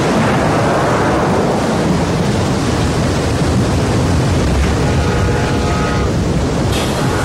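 Steady roar of rushing floodwater. About two-thirds of the way through, a steam locomotive whistle starts: a held chord of several steady tones over the water. A short hiss sounds near the end.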